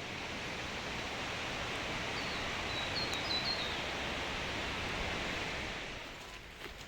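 Steady rushing of a waterfall and river far below the rainforest canopy, fading near the end. A bird gives a few short high chirps between about two and three and a half seconds in.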